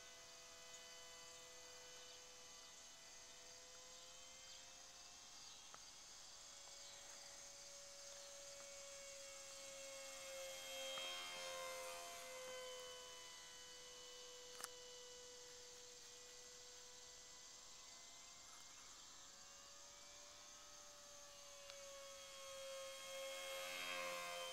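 Electric motor and propeller of an E-flite Curtiss N9 radio-controlled model biplane whining steadily in flight, the pitch wavering slightly. It grows louder about ten seconds in and again near the end as the plane passes close overhead, with a single brief click midway.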